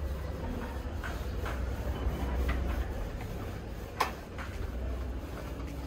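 Large plant leaves being handled, with faint rustles and light clicks and one sharp click about four seconds in, over a steady low rumble.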